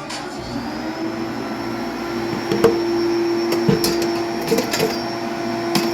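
A vacuum cleaner starts up, its whine rising within the first second and then holding steady, with a few sharp knocks as it is pushed around.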